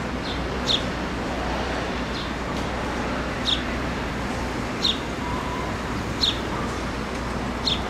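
House sparrow chirping: five short high cheeps, about a second and a half apart, over a steady background rush of noise.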